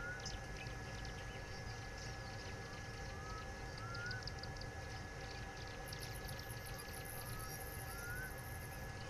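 Wild outdoor ambience: short rising whistled bird notes, in pairs every few seconds, over scattered small chirps, a steady high tone and a low rumble. From about six seconds in, a fast, very high-pitched pulsing trill joins.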